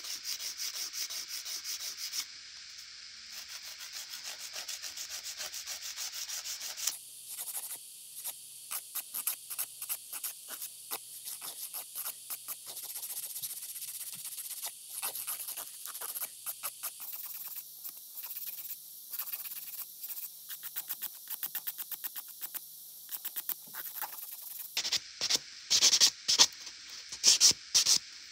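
A 150-grit half-moon nail file rasping across the edge of a soft gel extension nail tip in many quick short strokes, shaping it. Near the end the strokes turn louder as a sanding block scratches up the nail surface.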